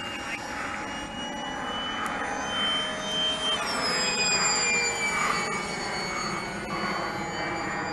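Two radio-controlled model planes flying overhead, their motors and propellers making a steady high whine at several pitches that drops in pitch about halfway through.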